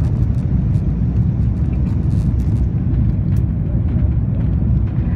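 Steady low cabin noise of an Airbus A330-200 in flight, engine and airflow noise heard from a window seat over the wing, even in level throughout.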